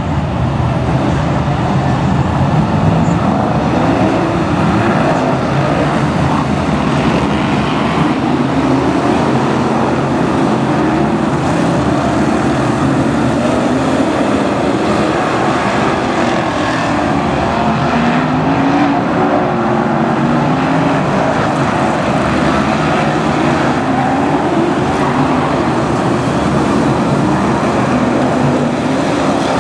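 Several BriSCA F1 stock cars' V8 engines running together as the pack circulates, loud and continuous, the engine pitch rising and falling.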